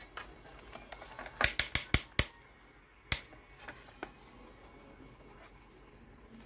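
Rotary range selector of an analog multimeter clicking through its detents as it is set to the continuity range: a quick run of five sharp clicks about a second and a half in, then a single click about a second later.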